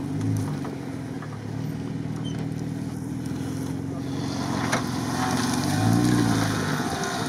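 Jeep Wrangler's engine pulling under load as it drives up a snowy slope, the revs rising and falling about six seconds in. From about four seconds in there is a hiss of the tyres churning and throwing snow.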